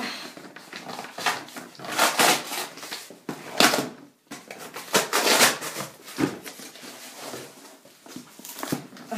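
Large cardboard box being opened by hand: flaps pulled back and cardboard scraping and rustling in a run of irregular bursts, the loudest about two, three and a half, and five seconds in.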